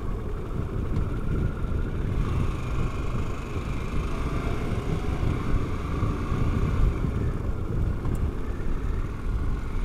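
Harley-Davidson Pan America Special's 1252 cc 60-degree V-twin running steadily at cruising speed, a throaty engine note over a steady low rumble.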